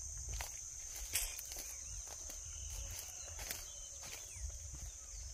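Footsteps crunching on dry maize leaves and stalks in a cornfield, about one step a second, over a steady high insect chorus.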